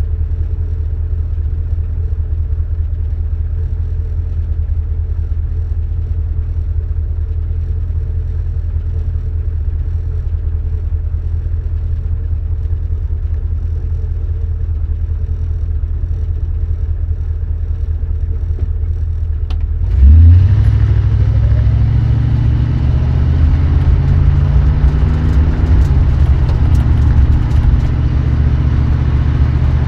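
1973 Dodge Dart's 318 V8 running with a steady low drone, then about two-thirds of the way through it suddenly gets louder and revs up, its pitch rising and then holding at the higher speed.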